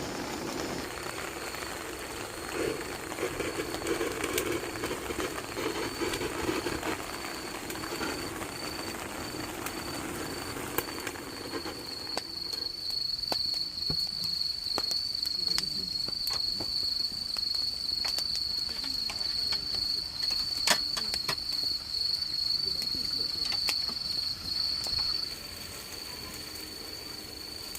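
An insect trilling: a high, steady, shrill tone that starts broken into chirps and becomes continuous and louder about twelve seconds in. Scattered light clicks and taps are heard over it, with one sharper tap about twenty seconds in.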